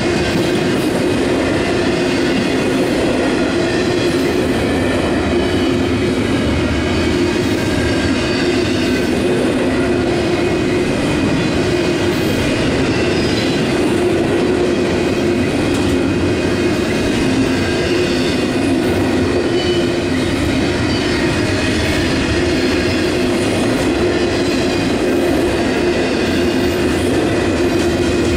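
Union Pacific double-stack intermodal train's loaded container well cars rolling past: a steady, unbroken rumble and rattle of steel wheels on rail, with a faint held tone running over it.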